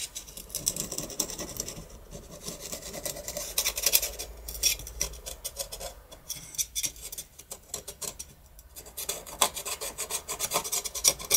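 Irregular rasping and scraping on metal, a long run of short strokes that eases off for a moment about two-thirds of the way through and then picks up again.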